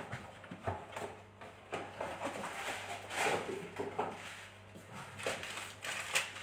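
Light scattered knocks, clicks and rustles of things being handled, over a faint steady low hum.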